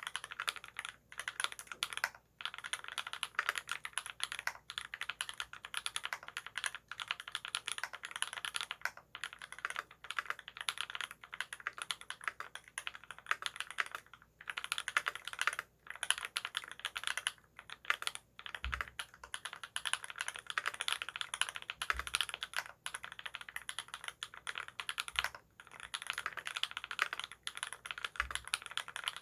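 Steady typing on a TX87 v2 mechanical keyboard with lubed Holy Panda tactile switches on a brass plate, Thinsulate dampening in the case and GMK keycaps: a dense run of muted key clacks with a few short pauses. Four low thuds fall in the second half.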